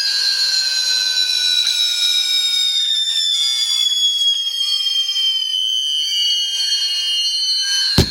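Whistling fireworks: several high whistle tones held together, sliding slowly down in pitch, then a sharp bang near the end.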